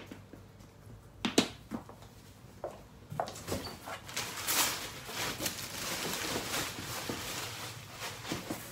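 A sharp knock a little over a second in. Then, from about three seconds in, steady crackling and rustling of plastic wrapping and cardboard as hands dig through a packed box.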